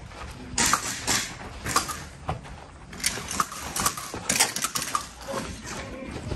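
Footsteps crunching on gravel, with the clink and rattle of carried gear and rifle. They come as an irregular run of sharp clicks, roughly two a second.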